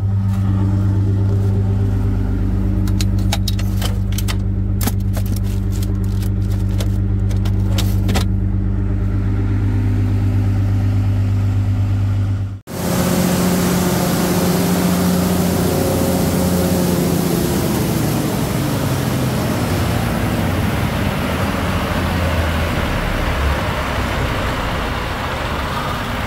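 Cummins LTA turbocharged diesel engine of a standby genset running steadily after an oil change, heard first as a muffled hum with a run of light clicks, then, after a sudden cut about halfway, up close and noisier with the rush of its radiator fan.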